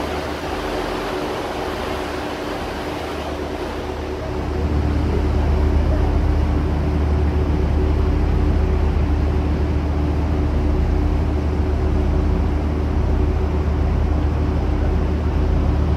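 Excursion boat's engine running, a steady low drone with a hum above it, getting louder about four and a half seconds in.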